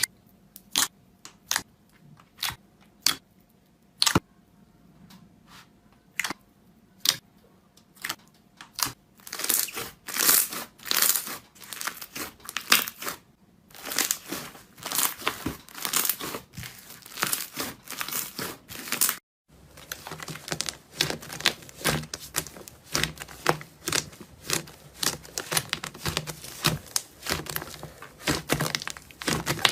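Slime being squeezed and worked by hand, making sharp pops and crackles. Scattered single pops come first, then a dense run of crackling that cuts off abruptly about two-thirds of the way through, and the crackling starts again.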